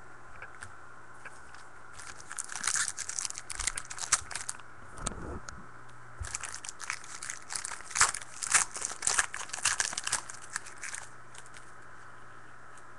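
Foil wrapper of a football trading-card pack being torn open and crinkled by hand, in two spells of crackling with a pause between, over a faint steady hum.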